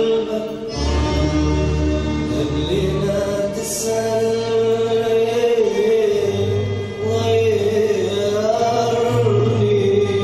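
Recorded Arabic song with singing, played loudly over a loudspeaker: a held, wavering melody over low bass notes that shift every second or two.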